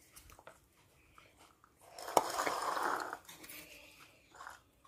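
A baby monkey drinking from a small glass of water held to its mouth: a sharp click about two seconds in, then about a second of slurping.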